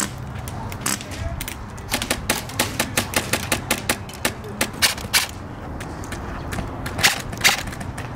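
Airsoft rifles firing: irregular sharp cracks, single shots and quick strings.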